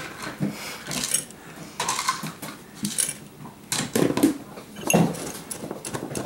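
Metal spoon clinking and scraping against a ceramic bowl in short irregular strokes while stirring wet dog food and gravy into dry kibble.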